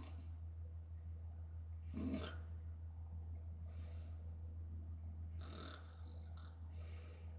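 A sleeping woman snoring through an open mouth: one snore about two seconds in, then a few fainter, airy breaths in and out, over a steady low hum.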